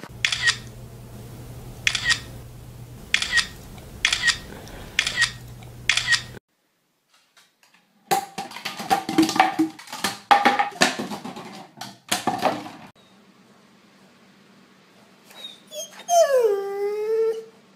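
A run of short pet clips. First, a series of short sharp sounds about once a second. Then plastic soda bottles are knocked over and clatter on a wooden floor, and near the end a Rottweiler gives a long whining howl that slides down in pitch.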